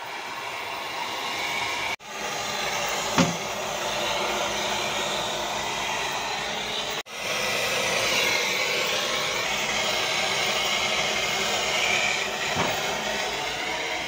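Brazing torch flame hissing steadily at a copper discharge-line joint on a scroll compressor being brazed with 45% silver rod. A sharp knock about three seconds in and a fainter one near the end; the sound cuts out abruptly twice.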